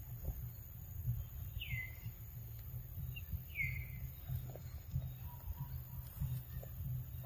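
Two downslurred bird calls about two seconds apart, with a short note just before the second, over a steady low rumble.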